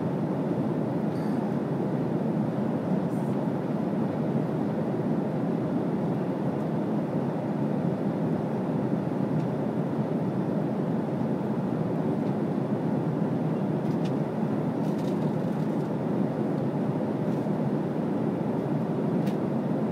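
Steady cabin noise of an airliner in flight, an even rush that does not change, with a few faint clicks.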